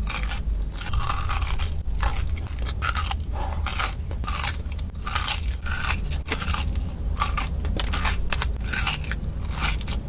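Close-miked eating: a person biting and chewing crunchy food, an irregular run of crisp crunches, a few a second.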